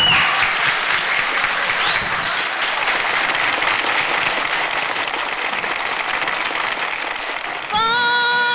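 Audience applauding in a hall, a steady patter of many hands. Near the end the applause gives way as music starts up with held notes.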